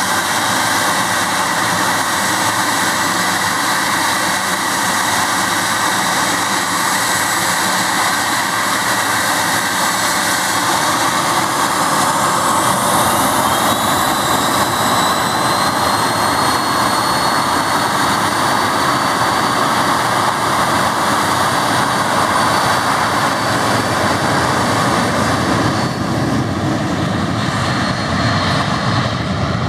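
Cessna Citation Bravo's twin Pratt & Whitney PW530A turbofans running loudly on the runway. About twelve seconds in, a rising whine climbs over several seconds as the engines spool up for takeoff. Near the end the high hiss fades and the sound turns deeper as the jet rolls away.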